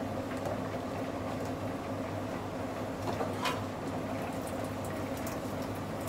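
Steady low hum of the room, with a faint click about three and a half seconds in as parts on top of a washing machine are handled and unfastened.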